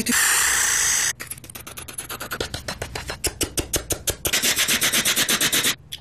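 A person imitating a helicopter with the mouth: a breathy hiss, then rapid chopping puffs of breath for the rotor blades, which grow louder before cutting off suddenly near the end.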